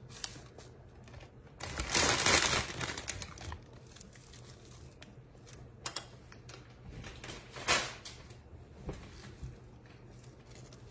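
Chopped kale leaves rustling and crinkling as handfuls are grabbed and dropped into a pot of soup. The loudest rustle comes about two seconds in, a shorter one near eight seconds, with a few light clicks between.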